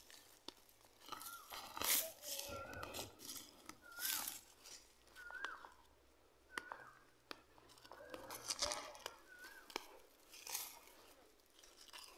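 Dry grass and weeds being pulled up and soil scraped by hand: irregular crackling, tearing and crunching of dry stalks with sharp snaps. Short high whistled notes recur every second or so.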